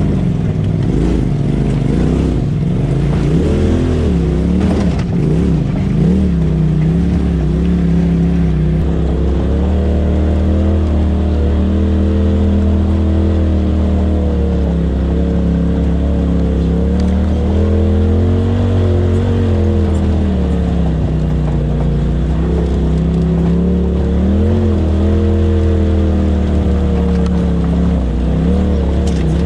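Side-by-side UTV engine running at low road speed, its pitch rising and falling again and again as the throttle is worked over rough trail.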